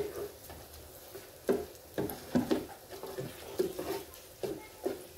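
A slotted skimmer knocking and clacking against the basket of a small electric deep fryer while dough balls frying in the oil are turned: about nine sharp knocks at uneven intervals, several in quick pairs.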